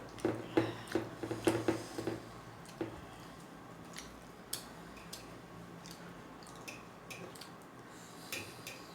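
Close-up eating sounds of finger millet dhido: wet squishing and chewing, a quick run of smacks in the first two seconds, then scattered single clicks.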